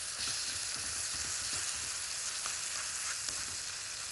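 Chopped vegetables and freshly cracked eggs sizzling steadily in a frying pan, with light scraping as a wooden spoon stirs them.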